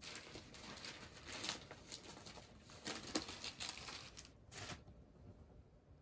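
Faint rustling and crinkling, a run of brushing strokes that dies away about five seconds in.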